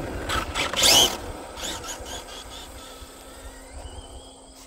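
Losi 22S no-prep RC drag truck launching at full throttle: a sharp burst of electric motor whine and tyre noise about a second in, the whine rising in pitch and fading as the truck speeds away down the road.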